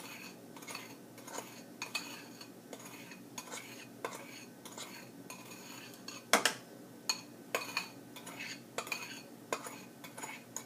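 Spoon stirring gelatin mixture in a container: irregular clinks and scrapes against the container, with one sharper knock about six and a half seconds in.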